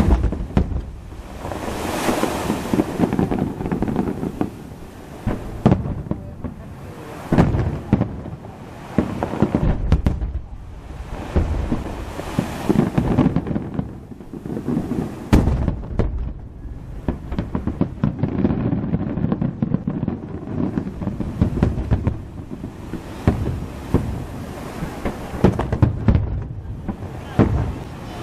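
Aerial fireworks show: a steady run of shell bursts, each a sharp bang followed by a rolling, crackling rumble, with heavier volleys every few seconds.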